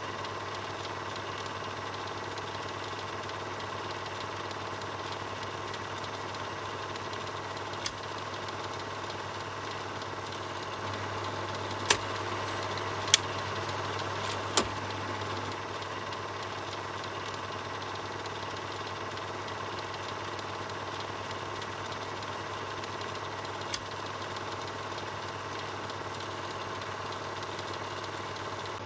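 Film projector running steadily, its motor hum under a fast, even clatter from the film-advance mechanism. A few sharp clicks cut through, three of them loudest between about 12 and 15 seconds in.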